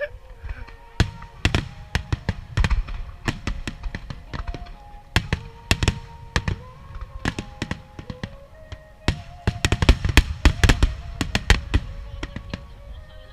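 Aerial firework shells bursting in rapid, irregular succession: many sharp bangs, thickest a little before the end, over music with long held notes.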